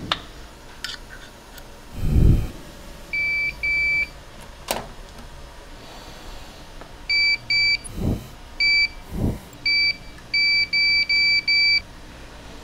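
Coordinate measuring machine beeping each time its touch-trigger probe contacts the part: short beeps of one steady pitch, a pair about three seconds in, then a quick run of about nine in the second half. A few low thuds, the loudest about two seconds in, and a couple of sharp clicks fall between them.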